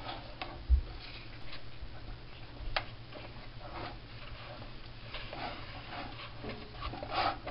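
Wooden spoon stirring thick maja blanca pudding in a metal pot, with irregular knocks, clicks and scrapes against the pot. There is a heavy thump less than a second in.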